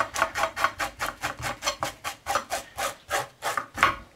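Knife blade scraping the scales off a salmon fillet's skin on a wooden cutting board: quick, even rasping strokes, about five a second, stopping just before the end.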